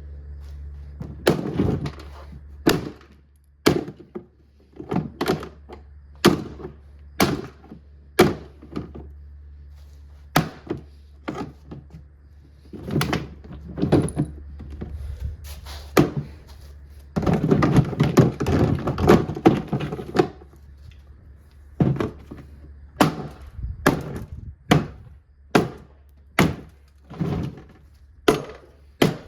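Repeated blows smashing a Kuppet portable washing machine, about one hit a second, with a quick flurry of hits in the middle.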